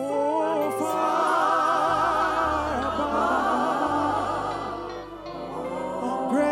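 Slow gospel worship music: voices sing long, wordless held notes with heavy vibrato over sustained low bass notes. The singing swells about a second in and eases off near the end.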